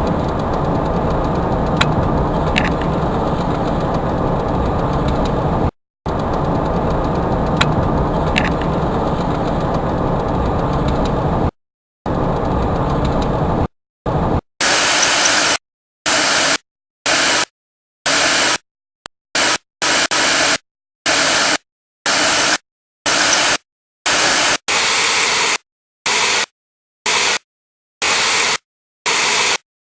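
Steady vehicle road and engine noise that cuts out briefly twice. Then, from about halfway, it gives way to choppy bursts of static-like hiss, roughly one a second, each separated by silence.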